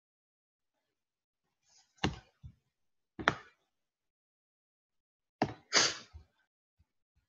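Five short, sharp knocks after a stretch of dead silence: three starting about two seconds in, then two close together near the end.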